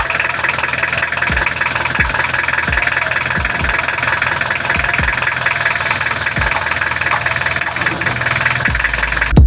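Freshly overhauled Hyundai H100 diesel engine idling steadily with diesel clatter, soon after being started. A few low thuds come at irregular moments.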